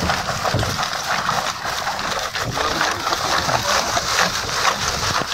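Rapid, irregular clicking and scraping as the spines are taken off freshly caught sea urchins.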